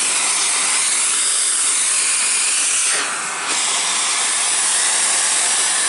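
Vacuum cleaner running with a loud, steady hiss while being pushed across the floor and picking up debris; about halfway through, the noise dips briefly and changes in tone.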